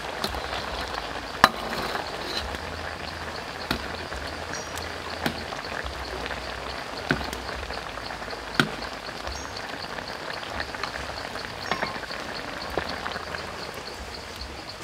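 Chicken legs in a thick coconut-water sauce sizzling in a steel wok over a wood fire, a steady hiss with a sharp click every second or two.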